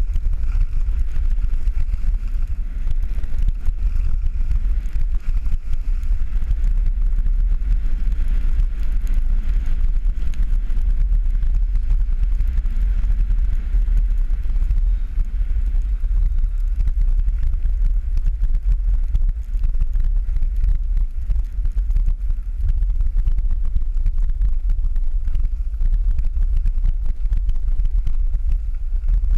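Wind buffeting a GoPro's microphone while skiing downhill at speed: a steady, loud low rumble, with a fainter hiss from the skis running over packed snow.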